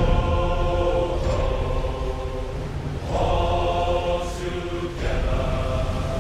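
A large group of voices chanting in unison, in long held phrases that break about three seconds in and again near five seconds, over a steady low rumble.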